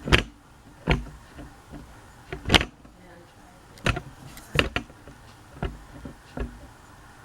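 Handling noise: about seven irregular knocks and clunks, the loudest about two and a half seconds in.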